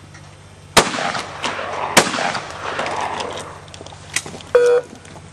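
Shotgun fired twice at a clay target, the two shots about a second apart, each trailing off in a long echo. A short pitched sound follows near the end.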